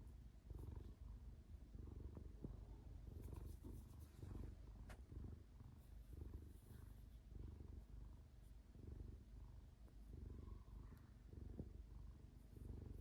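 Cat purring, a low rumble that swells and fades in even pulses with its breathing, with a faint click here and there.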